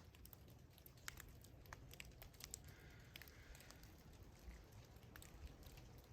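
Light rain: irregular taps and drips of raindrops over a low, steady rumble.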